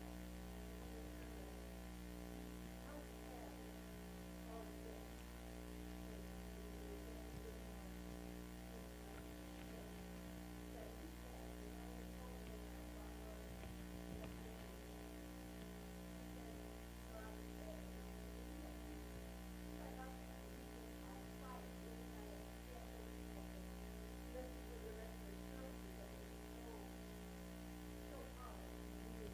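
Steady low electrical mains hum, with faint, scattered, indistinct sounds above it.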